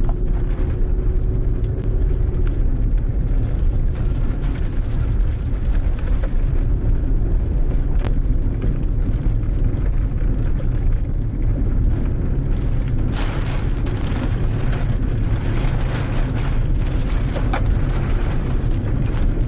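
Strong storm wind buffeting the microphone as a heavy, steady low rumble, with a brighter hiss joining about two-thirds of the way in.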